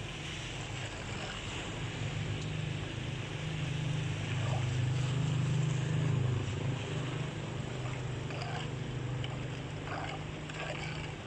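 Floodwater draining into a clogged roadside culvert: a steady low rumble over a constant rushing hiss, the rumble swelling about halfway through. A few soft splashes come as a hand tool rakes debris out of the water.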